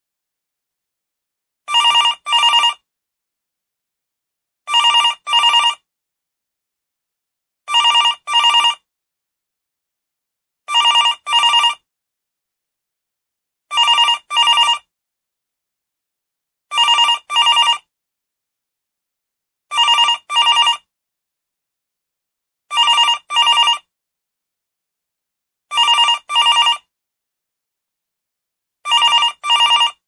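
Telephone ringing in a double-ring pattern: two short rings close together, then a pause of about two seconds, repeated ten times.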